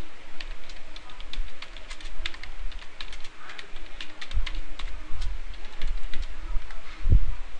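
Typing on a computer keyboard: irregular key clicks as a short message is typed. There are a couple of low thumps, the loudest near the end.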